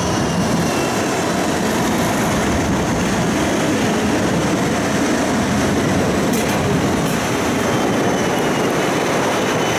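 Siemens Combino low-floor tram running along the line, heard from inside the car: a steady rolling rumble of wheels on rail with a faint high whine.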